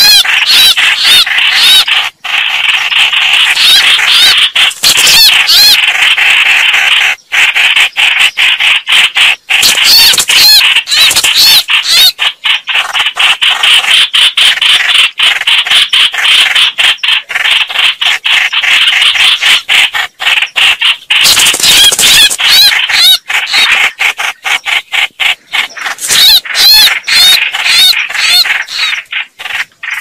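Red-whiskered bulbuls calling in a fight: a loud, dense, fast chatter of overlapping calls with wavering high notes, broken by frequent brief pauses.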